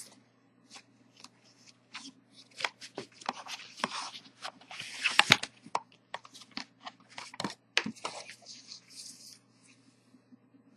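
Cardboard box and paper instruction manual being handled as the contents are taken out: irregular rustling, scraping and small knocks, loudest about five seconds in.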